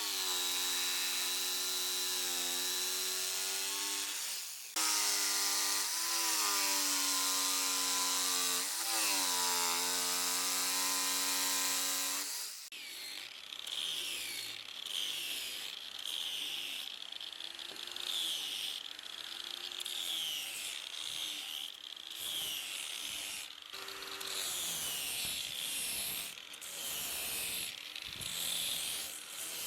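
Power tool cutting and shaping wood: a steady pitched whine with a buzz for about twelve seconds, dipping briefly in pitch twice, then stopping. After that comes uneven, stop-and-start grinding and rubbing against the wood.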